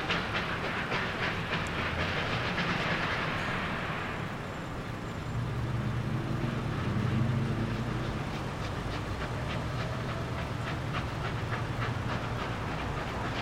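R class Hudson steam locomotives working a train past: a quick run of regular beats, a stretch of steam hiss a second or two in, then a low rumble midway before the regular beats return near the end.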